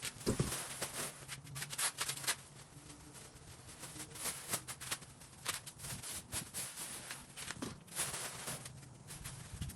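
Irregular light clicks, knocks and rustling from handling things, over a faint steady hum.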